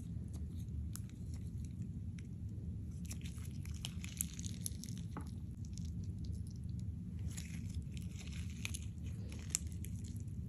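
Hands squishing and folding clear slime mixed with gold makeup, making sticky crackling and popping sounds in two bouts, about three seconds in and again about seven seconds in, over a steady low hum.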